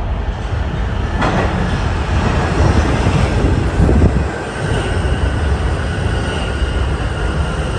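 New York City subway train running, a loud steady rumble of wheels on rail that turns harsher about a second in, with a steady high whine coming in about halfway through.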